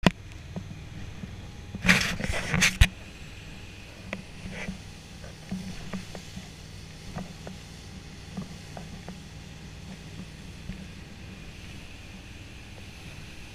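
Motorboat engine running steadily under way, a low drone. A few loud, sharp thumps come about two seconds in.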